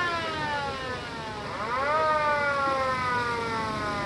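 Siren wailing: its pitch falls slowly, climbs again about one and a half seconds in, then falls slowly again.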